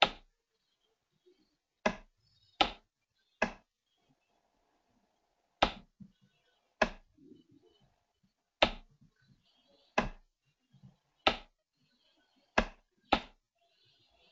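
Computer mouse clicking: about eleven sharp single clicks at irregular intervals, a second or two apart.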